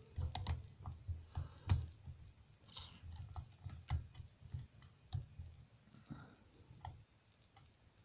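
Lock pick working the pins of a pin-tumbler lock cylinder under tension: a run of small, irregular metallic clicks and ticks as the pins are lifted and spring back, with soft low bumps from the tools being handled. The clicks thin out near the end.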